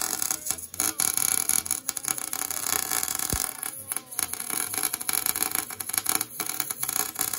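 Wire-feed (MIG-type) welder arc crackling and sizzling as a bead is laid inside a BMW E36 differential, welding the gears together to lock the diff. The crackle breaks off briefly several times as the trigger is let off and restarted.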